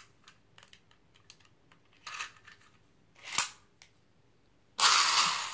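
Small clicks and rustles of hard plastic Beyblade parts being handled, with a sharp click about three and a half seconds in. Near the end comes a sudden, loud rasping rush of noise.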